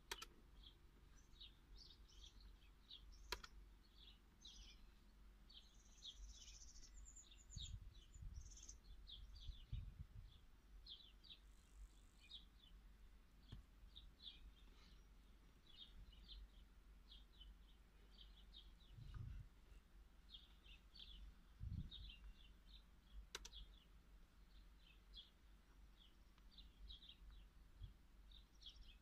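Near silence with faint, quick bird chirps throughout and two sharp clicks.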